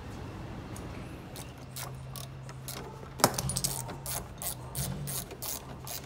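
Hand tools clicking and clinking on fasteners as a car's front bumper is taken off, in an irregular run of sharp clicks with one louder knock about halfway through. A faint steady low hum runs underneath.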